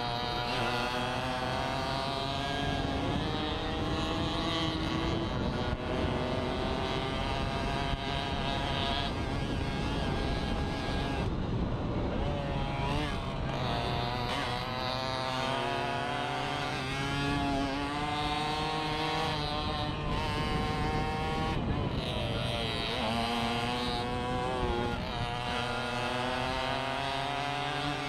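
Small two-stroke racing moped engine heard from onboard, revving hard: its pitch climbs through each gear and drops back again and again at the shifts and when the throttle is eased for the bends.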